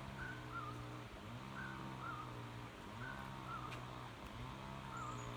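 Background music: a short looped phrase of low held notes under a high warbling figure, repeating about every second and a half.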